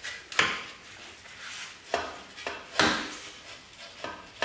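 Honda CBR500R's stock exhaust being worked loose and pulled off the bike: metal clunks and scraping, with about four sharp knocks roughly a second apart.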